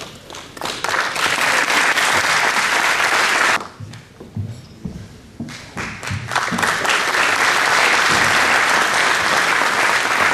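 Audience applauding: one round of clapping that stops about three and a half seconds in, then after a short lull a second, longer round that builds and keeps going.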